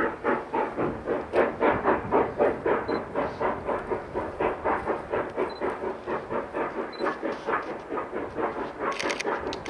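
Narrow-gauge steam locomotive exhaust chuffing in a steady rhythm of about four beats a second, with a few sharp clicks near the end.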